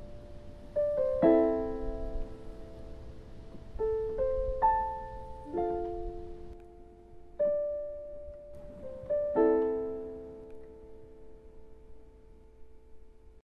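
Slow, sparse piano music: chords struck every second or two and left to ring out, stopping abruptly near the end.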